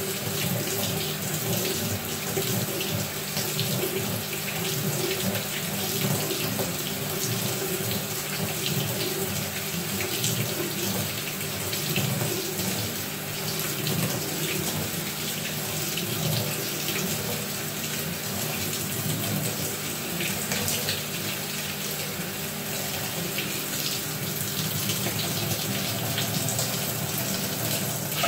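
Water running steadily into the tub of a Maytag top-load agitator washer, with a low hum under it.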